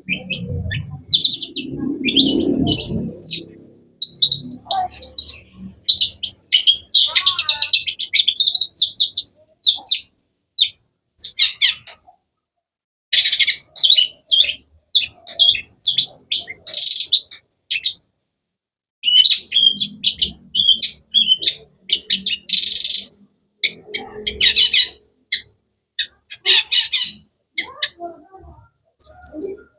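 Long-tailed shrike (cendet) singing: quick runs of sharp, varied chirps and trills in phrases broken by short pauses. A lower, duller sound lies under the first few seconds.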